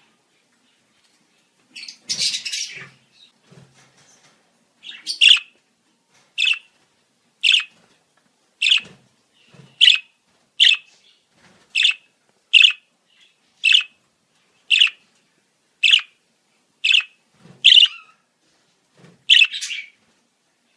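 Budgerigar calling: a short burst of scratchy chatter about two seconds in, then a run of about fourteen short, sharp calls, roughly one a second.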